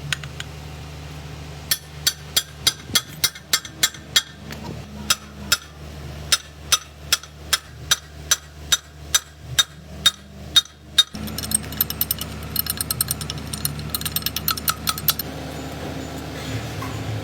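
Hammer striking metal, about two to three blows a second, then a run of quicker, lighter ringing clinks; a low steady hum runs underneath.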